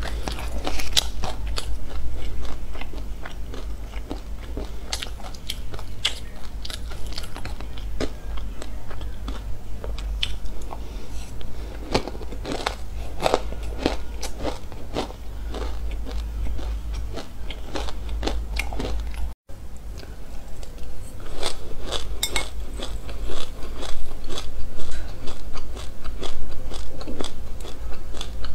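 Close-miked crunching and chewing of mouthfuls of dry sesame seeds: a dense, irregular crackle of many small sharp crunches. The sound cuts out for an instant about two-thirds of the way through, and the crunching is louder after that.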